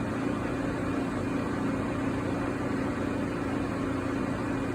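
Milltronics SL10 CNC lathe running with a steady hum and one constant low tone, while its tool-setter probing cycle runs.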